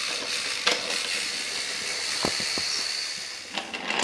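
Steam locomotive sound effect: a steady hiss of steam with a few light clicks, dying away about three and a half seconds in.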